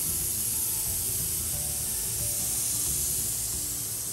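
Spiral metal-hose winding machine running steadily as it roll-forms a brass strip onto a turning mandrel: an even hiss over a low mechanical hum.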